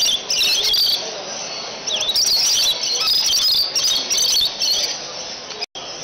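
Caged parrots at a bird show calling in shrill bursts of chirps and squawks, with a quieter stretch about a second in. The sound cuts out for an instant near the end.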